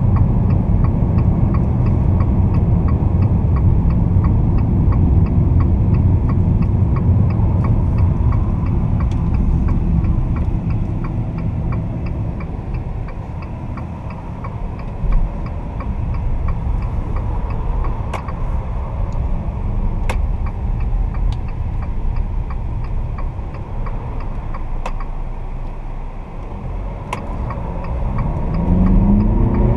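In-cabin sound of a Fiat Toro Volcano's 2.0 turbo-diesel four-cylinder driving on the highway: steady engine drone with road and tyre rumble, easing off at times. Near the end the engine note rises as it picks up speed. A faint regular ticking runs underneath.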